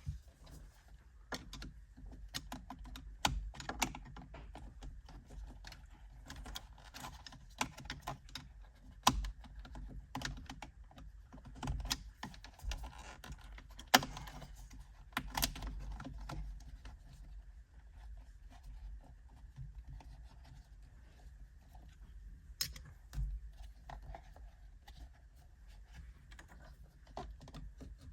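Irregular small plastic clicks and rustling from a wiring connector and its leads being worked loose around the plastic trim on the back of a steering wheel, with a few sharper snaps about nine and fourteen seconds in.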